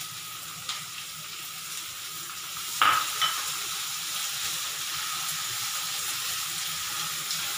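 Chopped onion sizzling in hot oil in a kadhai, stirred with a silicone spatula while it fries toward golden brown: a steady hiss. There is one sharp knock about three seconds in.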